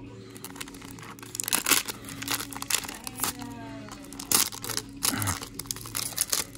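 Foil wrapper of a Flesh and Blood first-edition trading-card booster pack being torn open and crinkled: an irregular run of sharp crackles.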